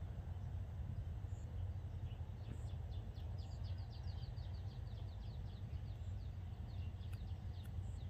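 A small bird calling in a rapid run of short, downward-sliding chirps, starting about two and a half seconds in and fading out near the end, over a steady low rumble.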